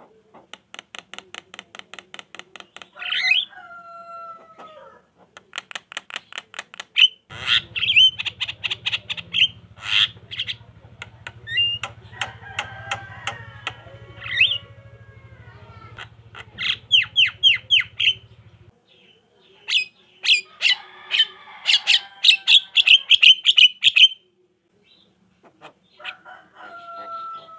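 Javan myna (jalak kebo) chattering: fast runs of harsh clicking notes, about eight a second, mixed with squawks and falling whistled notes, in bursts with short pauses between.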